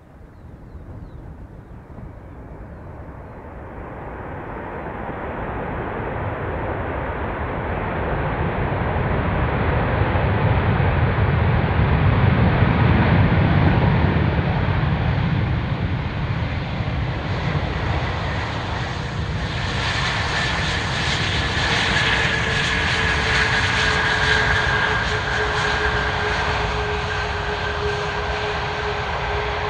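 Airbus A340-600's four Rolls-Royce Trent 500 turbofans rumbling as the airliner rolls out on the runway just after touchdown, growing steadily louder as it nears. From about two-thirds in, a steady two-tone engine whine, slowly falling in pitch, rides over the rumble as the engines pass close.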